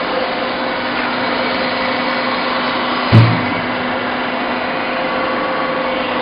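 Sawdust pallet-block making machine running with a steady mechanical drone and hum. A single loud thump about three seconds in.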